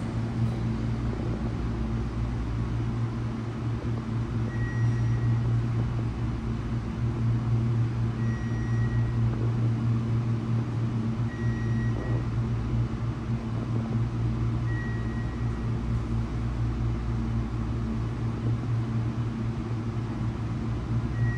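Otis hydraulic elevator car travelling down, with a steady low hum throughout. A short high beep sounds about every three to four seconds, five times in all: the floor-passing tone as the car passes each floor.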